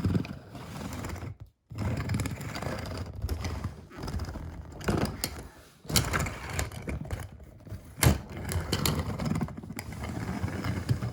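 Diecast toy cars clicking, rattling and rolling on a hard surface, with sharp knocks of metal and plastic. The sound cuts out abruptly twice, about one and a half seconds in and again near six seconds in.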